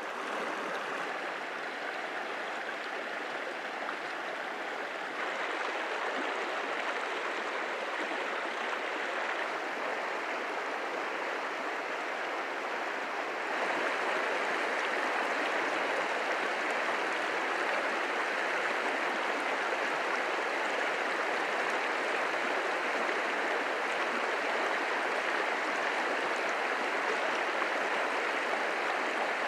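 Shallow mountain creek running over a rocky, cobbled bed: a steady rush of water that steps up in level about five seconds in and again about halfway through.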